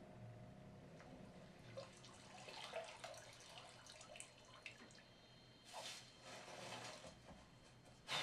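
Faint film sound effects played back through a home-theater center-channel speaker: scattered soft drips and rustles, with a brief hissing swish about six seconds in and another at the end.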